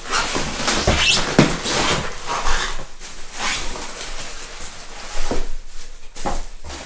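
Styrofoam packing blocks squeaking and scraping against each other and a plastic bag crinkling as a heavy industrial sewing machine head is pulled out of its foam packaging, with short squeaks and a few knocks.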